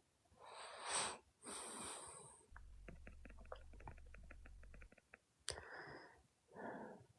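A man breathing close to the microphone, several soft breaths. Between them, a faint low rumble with small crackles lasts a couple of seconds: his stomach gurgling.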